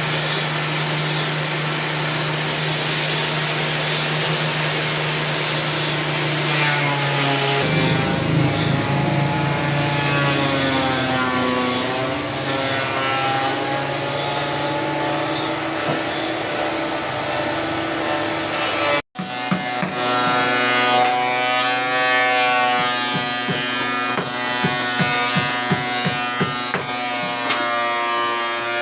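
An electric woodworking power tool running steadily, with a song with singing coming in over it after several seconds. About two-thirds of the way through the audio cuts, and a song with a beat and singing takes over.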